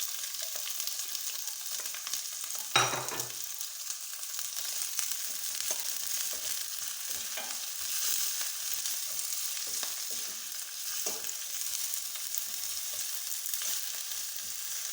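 Chopped red onions sizzling in hot cooking oil in a pot, with a spoon stirring and knocking against the pot now and then. One sharper clank about three seconds in.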